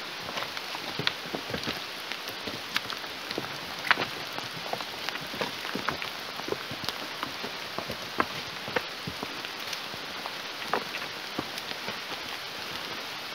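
Rain falling: a steady hiss with many irregular sharp drop ticks throughout.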